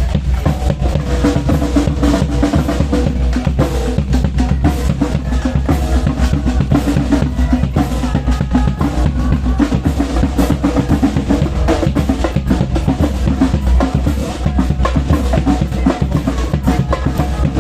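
Music with a busy drum kit: bass drum, snare and drum rolls over a steady deep bass.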